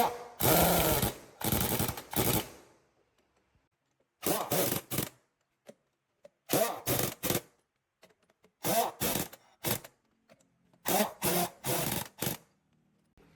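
Pneumatic impact wrench fired in short bursts, two to four at a time with brief pauses between clusters, as wheel nuts are run on or off.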